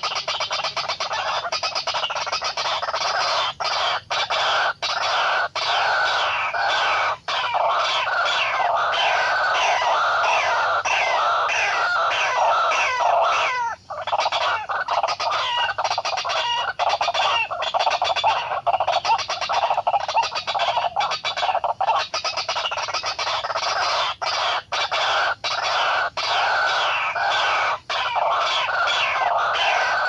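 White-breasted waterhen calling: a loud, continuous run of quickly repeated falling notes, a few a second, with a short break about halfway through.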